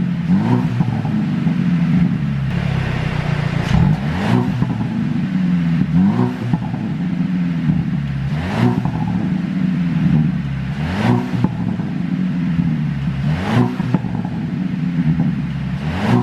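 Mercedes-Benz SLC200's turbocharged four-cylinder engine blipped from idle about every two seconds, with sharp pops and crackles from the exhaust as the revs fall. The pops come from an engine tune set up to pop on the overrun.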